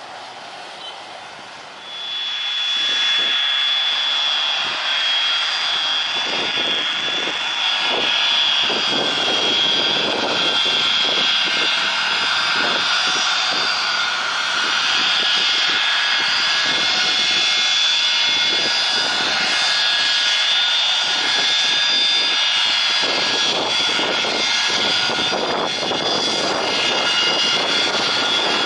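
Boeing 737-200 jet engines running loud and close as the airliner taxis: a steady jet roar with a piercing high whine. The sound jumps up sharply about two seconds in, then holds steady.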